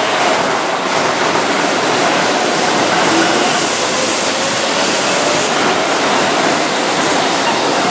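Keihan 7000 series electric commuter train pulling out of the platform and gathering speed past it: a steady rush of wheel and running noise.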